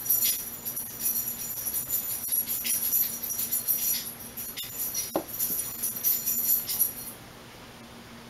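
Light metallic jingling of small bells or metal pieces, shaken irregularly, which stops about seven seconds in. One sharp click comes about five seconds in.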